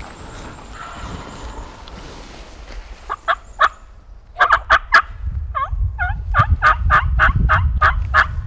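Wild turkey calling: a few short, sharp notes, then a quickening run of them at about four or five a second. A low wind rumble on the microphone sits under the calls in the second half.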